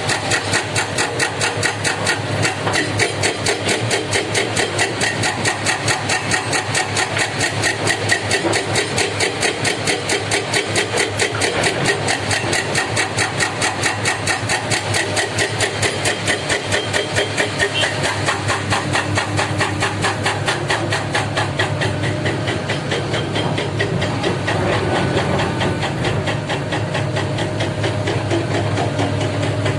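Heavy diesel engine of earthmoving machinery running steadily with a rapid, regular pulsing that smooths out about three quarters of the way through.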